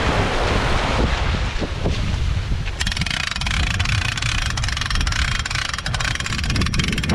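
Wind rumbling on the microphone over shallow surf washing around a boat trailer. From about three seconds in, a brighter hiss of foaming water joins it.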